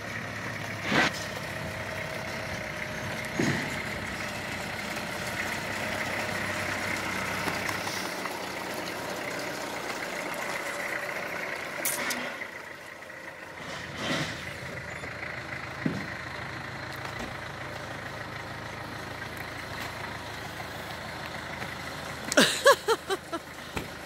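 Heavy diesel engine idling steadily, with a few sharp knocks and clanks along the way. A short run of loud, quick squeaky pulses comes near the end.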